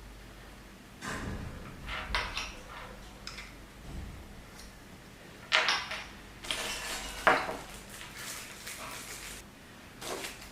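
Microscope eyepieces being handled and fitted into the head: scattered hard clicks and clinks of metal and glass parts, the loudest about five and a half and seven seconds in, with some rustling between them.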